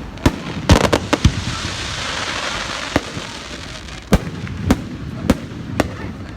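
Fireworks display: aerial shells bursting in a series of sharp bangs at irregular intervals, several close together about a second in. Between the bangs, around the second and third seconds, there is a stretch of hiss.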